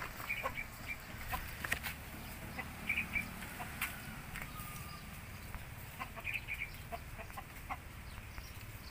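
Chickens clucking faintly in a few short bursts, with scattered light clicks between them.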